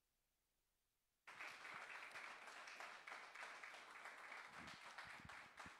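Congregation applauding, starting suddenly about a second in, with a few low thumps near the end.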